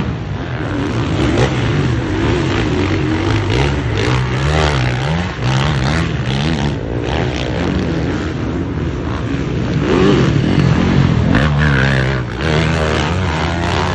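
450-class motocross bike engines racing, the pitch climbing and dropping again and again as the throttle is worked and gears change.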